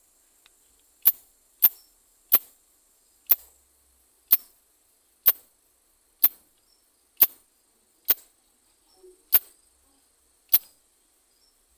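Nesonotus reticulatus katydid making single sharp, high clicks, about one a second at uneven spacing, eleven in all.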